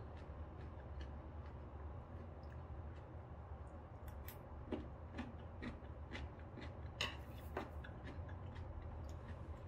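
Light clicks and clinks of metal chopsticks and a spoon against dishes while eating, scattered and irregular, with the loudest clink about seven seconds in, over a low steady hum.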